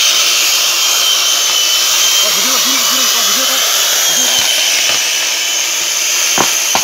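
Electric chainsaw running flat out and cutting through a tree trunk at its base: a loud, steady whine over the cutting noise. Two sharp knocks near the end.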